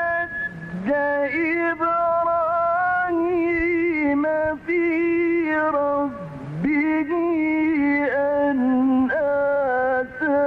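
A male reciter chanting the Quran in the melodic mujawwad style, holding long ornamented notes that waver and turn, with two brief swoops down in pitch, one near the start and one past the middle.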